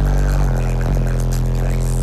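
Bass-heavy music played very loud through a car audio system's large subwoofers, with deep, steady bass notes that shift pitch a few times.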